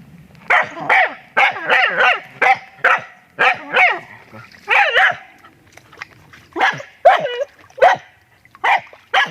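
Dog barking in quick runs of sharp barks, about seventeen in all, with a brief pause just after the middle.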